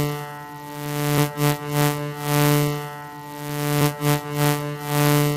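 Background music: a sustained synthesizer drone with a slow swell and short struck notes, repeating about every two and a half seconds.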